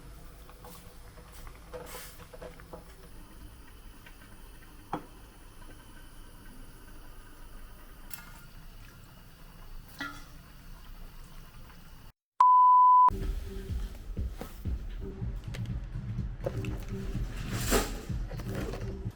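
Quiet background sound with a few faint clicks. About twelve seconds in, the sound cuts out for a moment, then comes a single steady electronic beep lasting under a second, the loudest sound here. After the beep the background comes back louder, with a low rumble.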